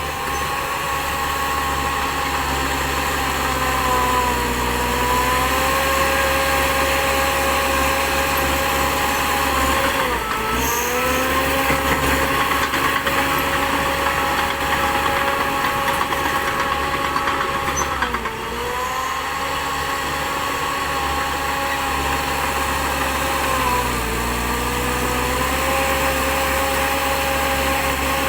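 Shantui DH10B2 mini bulldozer's diesel engine running hard and steady. Its pitch sags briefly and recovers four times, near the start and at about 10, 18 and 24 seconds in, as the engine is loaded.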